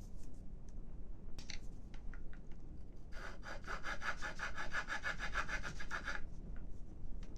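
Rapid back-and-forth rasping strokes of a hand tool working a thin wooden stick, about seven a second, starting about three seconds in and stopping about three seconds later, after a few light clicks.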